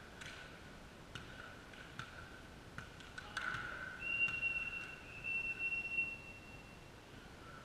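Faint sound of a volleyball match in a sports hall between points: scattered light knocks over a faint steady hum. About halfway through, a steady high tone starts and lasts some three seconds.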